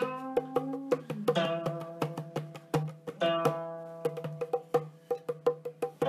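Guqin being plucked: several notes ring out and decay, some bending in pitch as the stopping hand slides along the string. Under them runs a low steady tone and a quick run of light percussive taps.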